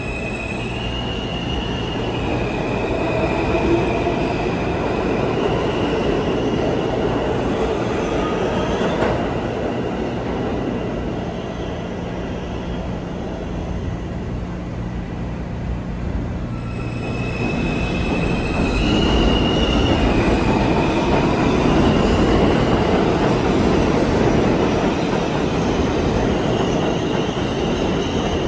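New York City Subway R160 trains: one pulls out and runs off, then after a quieter stretch in the middle another runs along the far track. Both bring steel wheel and rail rumble and a high whine that steps between two pitches.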